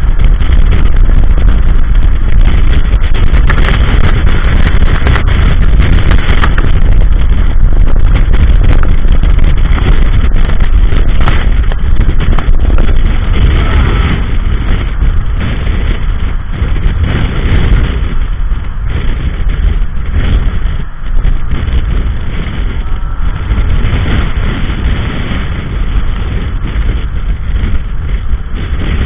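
Strong blizzard wind buffeting the microphone: a loud, continuous rumble with gusts, easing somewhat about halfway through.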